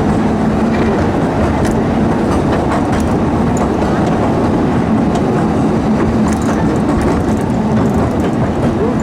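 Theme-park steam train running: a steady, loud rumble of the train and its wheels on the rails, with a constant hum and light scattered clicks.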